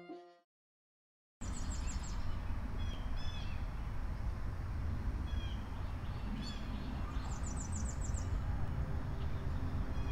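Outdoor ambience: small birds chirping now and then, with one quick run of chirps partway through, over a low steady rumble. It starts after a second of dead silence, as the preceding string music cuts off.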